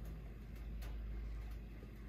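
Steady low hum of Taco 0015 wet-rotor circulator pumps running.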